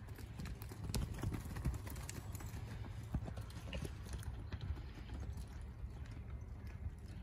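Quarter horse mare's hoofbeats, a run of irregular thuds over a steady low rumble.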